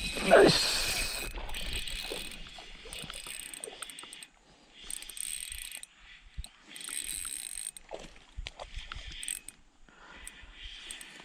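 Fishing reel being wound in several spells of mechanical whirring, broken by short pauses. A loud falling swish about half a second in is the loudest moment.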